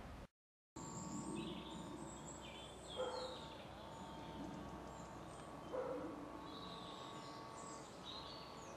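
Outdoor ambience with small birds chirping and singing, and two louder short calls about three and six seconds in. The sound cuts out completely for a moment just after the start.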